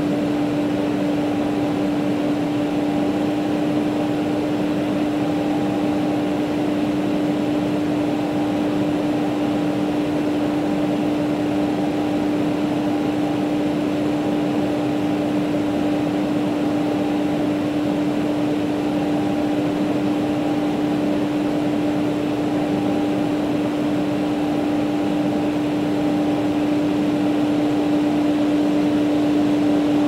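Hair dryer running steadily: an even rush of air over a constant motor hum.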